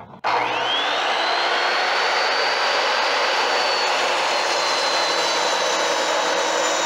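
A Ryobi TSS103 10-inch sliding miter saw's 15-amp motor switched on. Its whine rises quickly as the 40-tooth blade spins up to full speed, then runs steadily, with the pitch sagging slightly in the second half.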